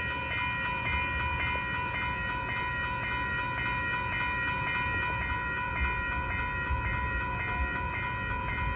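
Railroad grade-crossing warning bell ringing steadily in a rapid, even rhythm with the gates down, signalling an approaching train. A low rumble runs underneath.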